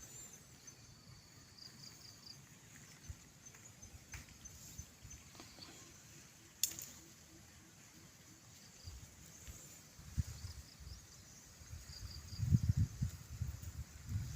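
Faint outdoor ambience with insects chirping in short, high repeated notes. A single sharp click comes about halfway through, and low thumps and rustles build up near the end.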